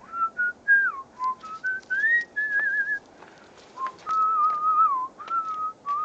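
A person whistling a tune: a run of clear held notes and short glides with brief breaks between them. A few faint clicks come through alongside.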